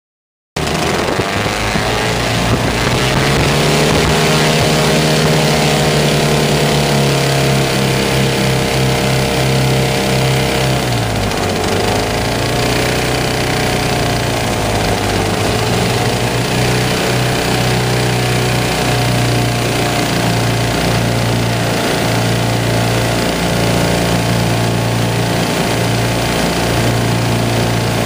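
Twin 9.5 hp Rotax two-stroke engines of a Lazair ultralight running on the ground, cutting in suddenly about half a second in. About ten seconds in the engine note dips and wavers in pitch, then settles to a steady run.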